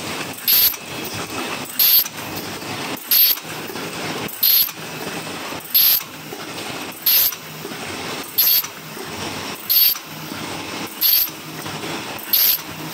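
Automatic paper cup forming machine running: a steady mechanical clatter with a short, sharp, high-pitched burst repeating evenly about every 1.3 seconds, once per machine cycle.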